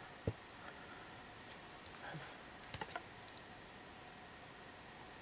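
A sharp click followed by a few faint taps as a clear acrylic stamp block is pressed onto card stock and lifted off, over quiet room tone.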